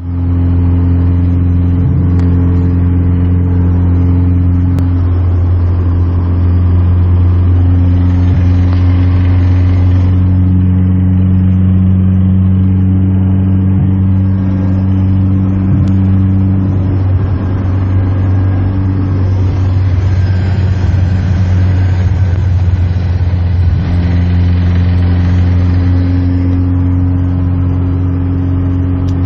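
A car engine running steadily at idle: a constant low drone, with a higher hum that cuts out and comes back every few seconds. This is the strange noise whose cause the owner cannot identify.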